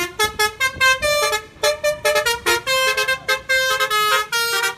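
A quick tune played on a horn: a fast run of short, bright honking notes that step up and down in pitch with brief gaps between them.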